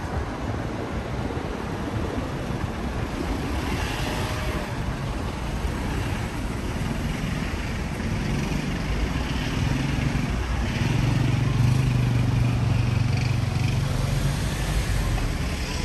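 City street traffic: vehicle engines running past, with one engine's low hum loudest from about eleven to fourteen and a half seconds in.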